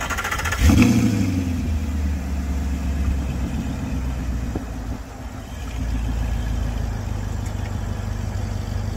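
Audi R8's 4.2-litre V8 starting up: a brief crank, then the engine catches with a sharp flare of revs about a second in and settles into a steady fast idle through the exhaust.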